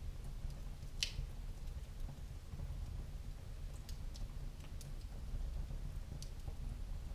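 Wood fire in a fireplace crackling: scattered sharp pops at irregular intervals over a steady low rumble, with the loudest pop about a second in.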